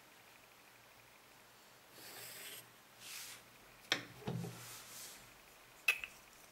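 Plastic set square sliding over paper in two short rubbing swishes, then a sharp click and a soft knock, and another sharp click near the end, as drawing tools are put down and picked up on the desk.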